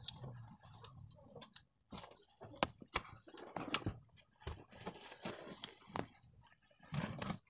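Irregular close-up rustling and sharp clicks as plants brush against the phone and it is handled. The loudest click comes about two and a half seconds in, and a brief louder low sound comes just before the end.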